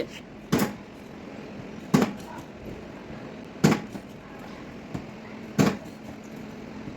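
Four sharp taps of a hammer on a car's sheet-metal body panel, spaced about one and a half to two seconds apart, as a dent is worked out.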